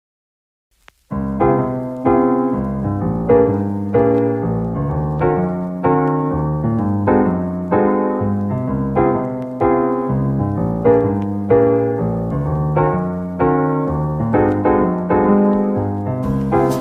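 Soft piano background music with evenly paced chords, starting about a second in.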